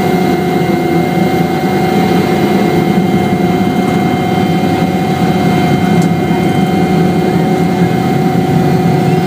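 Helicopter running steadily: a loud, even drone with a constant high whine over it.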